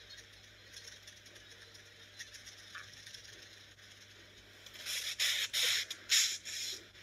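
Faint scratching of a pencil or charcoal stick on paper. About five seconds in come about five loud, rough scrapes over two seconds.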